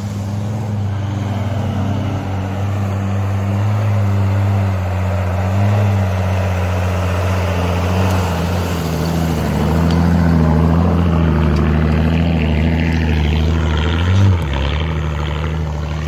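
Engines of 4x4 off-road vehicles driving slowly past through snow at low revs, a steady low rumble, with a short rev that rises and drops about fourteen seconds in.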